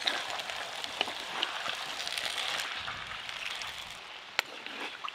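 Chicken pieces sizzling steadily as they fry in hot oil in a clay pot, with scattered small crackles and one sharp pop near the end.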